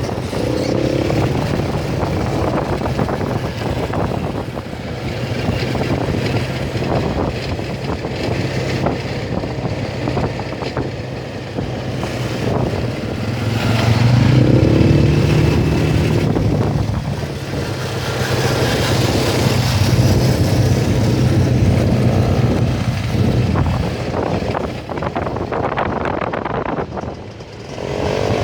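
ATV engine running off-road, its revs rising and falling. It gets louder about halfway through.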